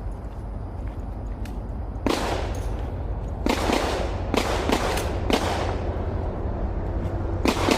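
Scattered gunshots, about nine in all at irregular intervals, starting about two seconds in. Each has a short echoing tail.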